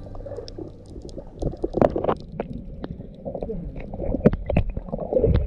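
Water sloshing and gurgling close by, with irregular knocks and clicks.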